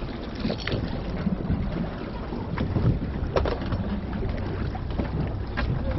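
Fishing boat at sea: a steady low rumble of wind and water on the microphone, with a few sharp knocks scattered through it.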